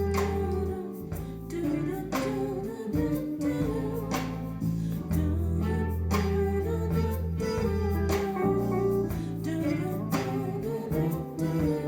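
Pop-disco song with electric guitar, bass and a steady drum beat, played back through Kenwood LS1800 loudspeakers driven by a Sansui AU-555A stereo amplifier.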